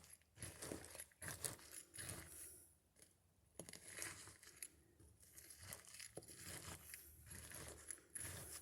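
Near silence with faint scattered rustling and light clicks.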